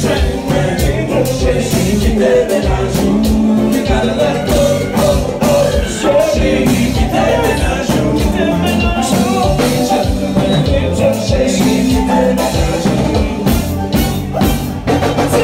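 Live band music with singing over a steady drum beat, loud and continuous.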